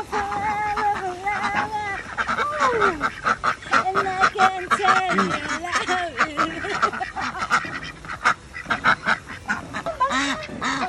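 A flock of white domestic ducks quacking, many short quacks coming fast and overlapping.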